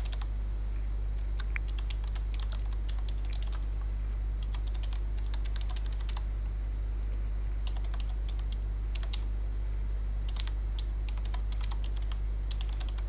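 Computer keyboard typing in short bursts of keystrokes with brief pauses between, over a steady low hum.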